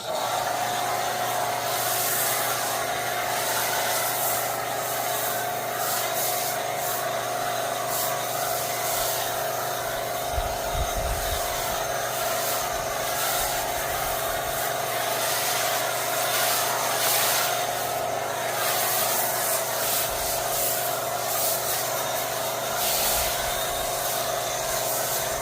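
Kranzle pressure washer running steadily with a foam cannon, a constant pump-and-motor hum under the hiss of foam spraying.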